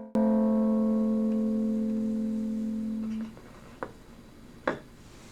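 A chord on an electric plucked string instrument, played through an Acorn Amps Biz Card low-power amplifier into an old speaker: struck once, it rings for about three seconds and is then muted. A few faint clicks follow.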